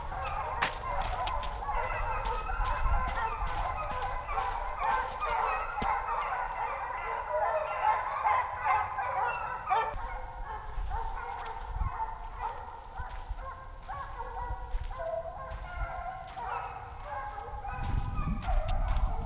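A pack of hunting dogs baying, many voices calling over one another at once.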